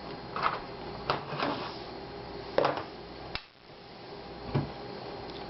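A handful of short plastic clicks and knocks from a laptop being handled and its parts taken out or set in place, about five in all, over a steady low hum.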